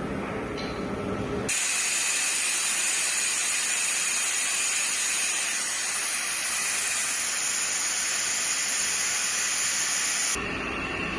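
Pressurized gas venting with a loud, steady, high-pitched hiss that starts suddenly about a second and a half in and cuts off abruptly near the end.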